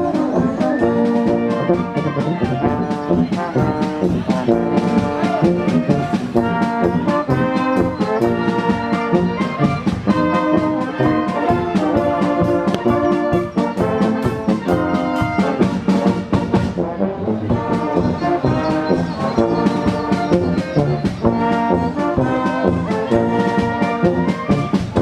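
Background music led by brass horns, playing held chords over a steady beat.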